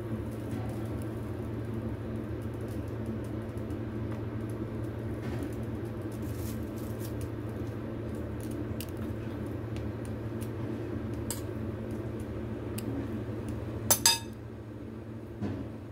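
A steady low hum with small faint ticks of hands working, then near the end two sharp clinks of a metal spoon against the large bowl of dumpling filling.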